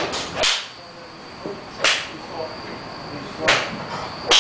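Sharp cracks of golf clubs striking balls off a driving-range mat, about five in four seconds, one of them about half a second in as the golfer's downswing meets the ball.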